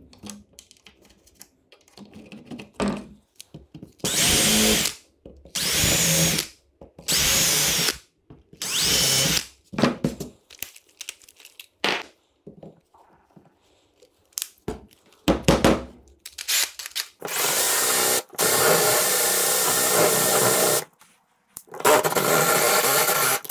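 Cordless drill running in four short bursts of about a second each, then boring with a Forstner bit in two longer steady runs as it cuts a shallow round recess into a wooden board.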